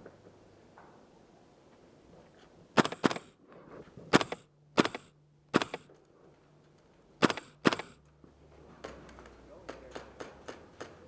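Airsoft guns firing single shots: seven sharp cracks over about five seconds, some in quick pairs, then a run of fainter, quicker clicks near the end.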